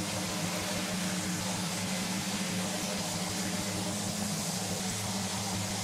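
Electric random-orbit sander running steadily as it sands a plywood workbench top, a constant hum with hiss.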